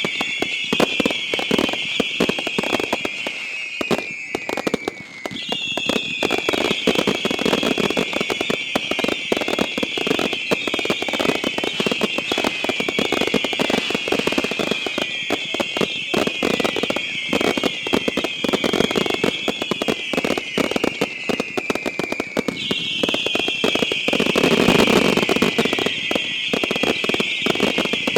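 Consumer fireworks firing many whistles at once: a dense chorus of shrill whistles falling in pitch, in repeated waves, over steady crackling. A louder low rumble comes near the end.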